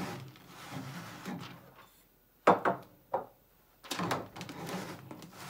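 Handling noise of an amber glass Boston round bottle in a plastic label-applicator jig: a soft rustle, then two sharp knocks about two and a half and three seconds in, then a longer rubbing rustle as the bottle is turned in the cradle and the label backing is pulled through.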